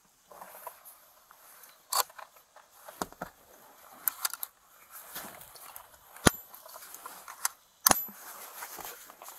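Hard plastic interior trim of a pickup cab being handled and shifted: a series of sharp clicks and knocks with rustling between, the loudest snap about six seconds in and another near eight seconds.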